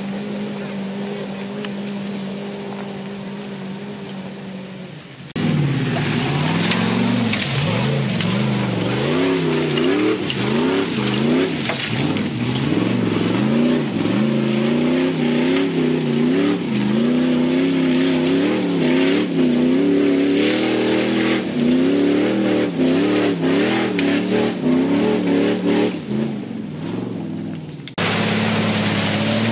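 Off-road 4x4 engines working hard up a loose-rock climb. A steady engine note fades away, then after a sudden cut a loud engine revs up and down over and over as the wheels scrabble for grip. Stones knock and crunch under the tyres throughout.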